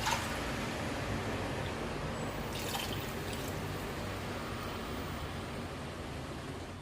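Water and rasam liquid in a cooking pot on the stove: a steady liquid hiss with dripping, and a short clink at the start.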